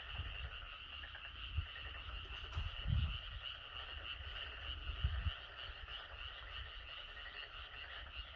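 Dense, continuous chorus of frogs and boreal digging frogs (maengkkongi) calling together. A few low bumps sound about one and a half, three and five seconds in.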